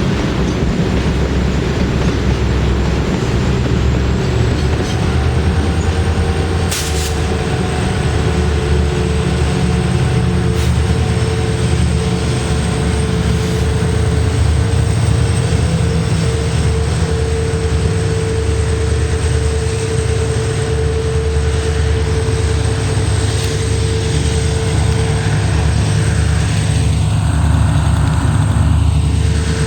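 WDG4 diesel locomotives working hard on a climb: a heavy, continuous engine rumble with a steady whine over it, mixed with the rolling of the tanker wagons.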